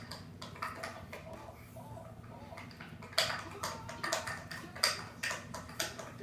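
Irregular rustling and light clicks of hands handling and wrapping an elastic bandage, with a few sharper clicks about three seconds in and near five seconds.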